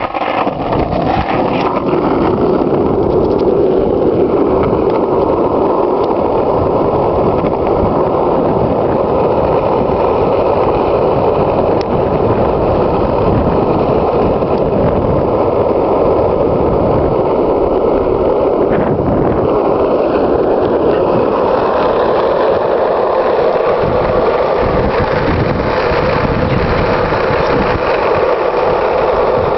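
Skateboard wheels rolling over asphalt, a loud steady rumble.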